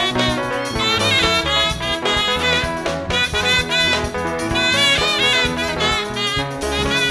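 Live band playing a seben groove: saxophone and electric guitar melody lines over bass guitar, drum kit and keyboard.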